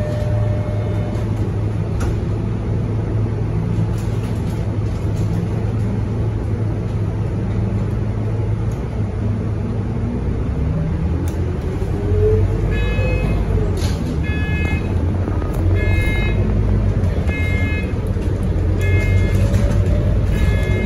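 Scania K230UB city bus's five-cylinder diesel engine running steadily under way, heard from inside the cabin, with a whine rising in pitch about halfway through as the bus picks up speed. From a little past the middle, a short electronic beep repeats about every one and a half seconds.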